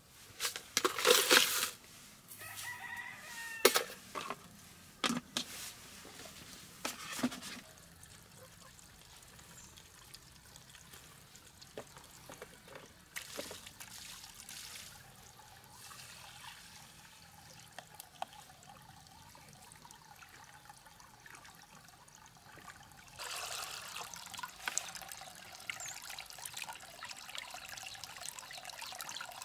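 Dry rice poured and scooped with a metal ladle into an aluminium pot: the grains rattle loudly on the metal, followed by a few sharp knocks of the ladle. A rooster crows briefly in the background a few seconds in. Near the end, water splashes as the rice is rinsed by hand in the pot.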